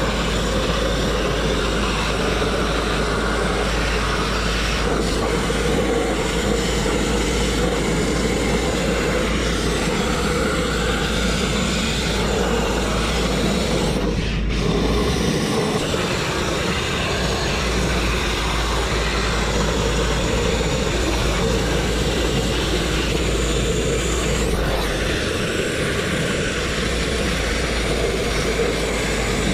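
Abrasive grit blasting: a hand-held blast nozzle firing compressed air and grit onto a steel truck chassis, stripping paint and rust. A steady, loud rushing hiss with a momentary break about halfway through.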